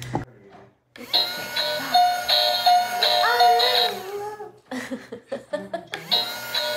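Minnie Mouse bubble wand toy playing its electronic tune while it blows bubbles. The tune starts about a second in, breaks off briefly past the middle, and starts again.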